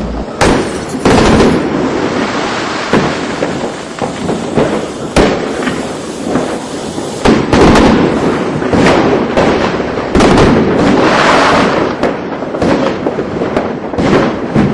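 Fireworks display: a dense run of bangs and booms over continuous crackling, with the heaviest bangs about half a second in, around five seconds, and in a cluster from about seven and a half to ten and a half seconds.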